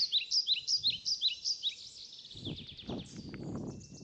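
A songbird calling a quick run of falling chirps, about two or three a second, that trails off into a softer trill. In the second half, a rustling in dry leaves on the forest floor.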